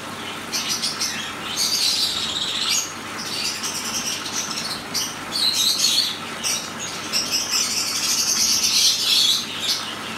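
Black-headed siskins twittering and fluttering at a small tabletop waterfall fountain, the high sounds coming in patches every second or two over the fountain's steady trickle.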